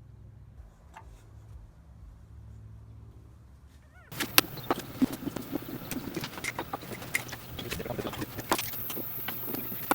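Faint low steady hum, then about four seconds in a sudden, louder run of irregular knocks, clicks and clatter.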